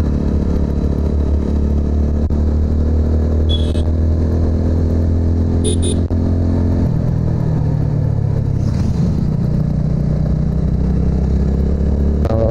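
TVS Apache RTR 200's single-cylinder engine running as the motorcycle rides along, its note shifting in pitch about seven seconds in after a brief dip.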